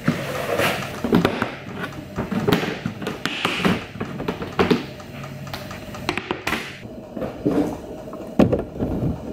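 Handling of a clear plastic storage box: a string of irregular knocks, taps and rattles as the box is set down and things inside are moved about, then items go into a fridge near the end.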